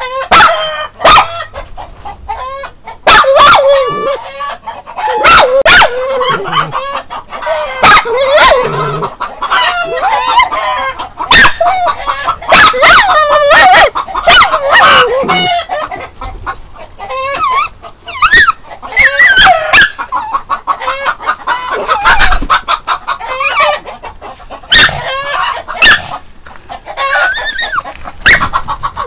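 Chickens clucking and cackling inside a coop. Many sharp, loud knocks are mixed in throughout.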